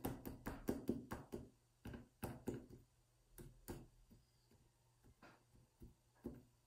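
Fork pricking the raw shortcrust pastry base in a tart tin, giving faint, sharp taps. The taps come quickly, about five a second, for the first second and a half, then slow to a few scattered taps.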